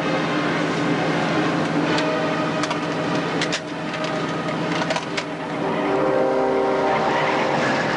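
Film soundtrack: sustained, tense music chords that shift to new notes about six seconds in, over the steady noise of a car driving, with a few sharp clicks in the middle.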